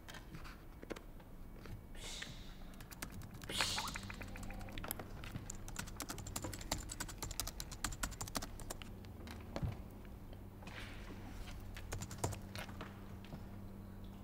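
Typing on a computer keyboard: runs of quick key clicks, over a low steady hum that starts a few seconds in.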